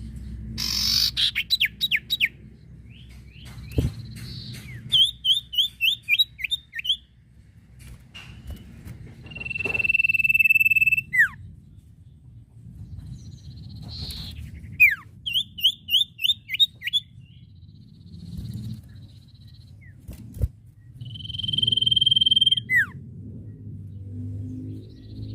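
Common iora (cipoh) singing in a loud, varied song. Long drawn-out whistles, twice, each dropping sharply at the end, alternate with quick runs of short rising notes. A steady low rumble runs underneath.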